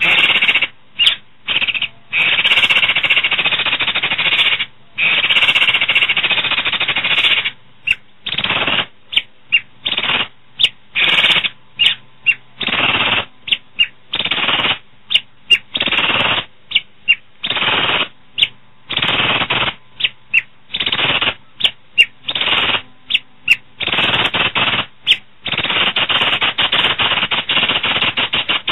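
Asian pied starling singing: loud, harsh, rasping chatter and rattles, some phrases lasting two or three seconds, broken up by many short sharp notes.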